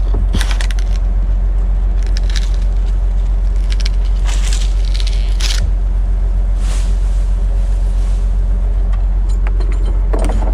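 Bucket truck engine running steadily, with a few short scraping, crackling noises over it.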